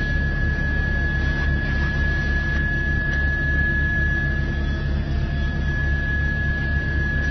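Steady news-helicopter cabin noise over an open microphone: a low, evenly pulsing drone of engine and rotor with a constant thin high-pitched tone on top.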